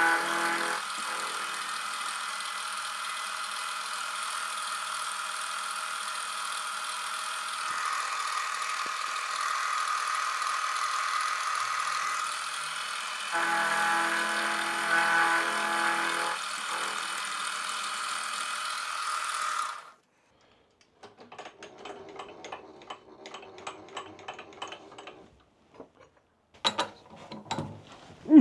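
Milling machine running an end mill through the side of a high-carbon silver steel rod held in a collet block: a steady machine sound with many held tones, louder and more pitched right at the start and again for a few seconds about 14 s in. It stops abruptly about 20 s in, followed by faint clicks and knocks as the collet block is handled and turned in the vise.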